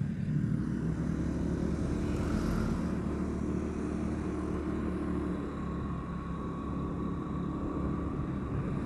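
Road vehicle engine running steadily at cruising speed, with tyre and wind noise.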